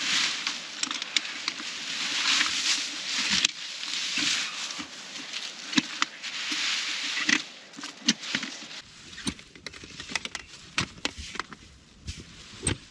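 Rustling noise swelling and fading in waves with a few clicks, then after about nine seconds an abrupt change to quieter, scattered sharp clicks and crackles.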